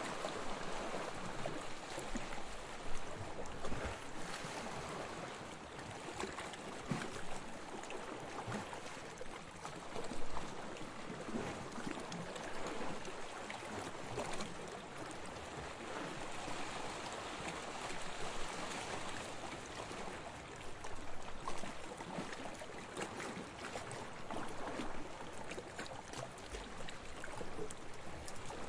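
Gentle waves washing onto a beach: a steady wash of water with small swells and a few brief splashes.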